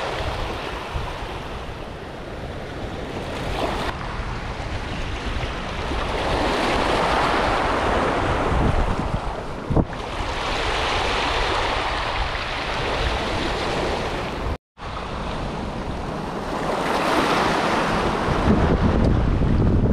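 Sea waves washing in on a rocky shore, the rush swelling and falling back about every ten seconds, with wind rumbling on the microphone. The sound drops out completely for a moment about fifteen seconds in.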